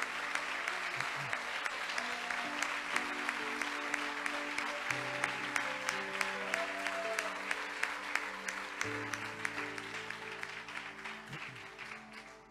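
Congregation applauding over soft instrumental music of slow held chords; the clapping fades away near the end.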